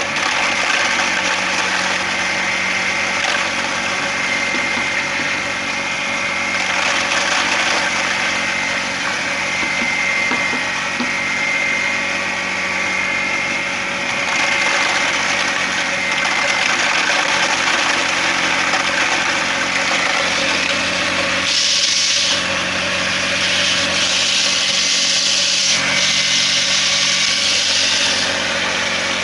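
Homemade hammer-type grain grinder driven by a washing machine motor, running steadily. A louder hiss comes and goes in the last third.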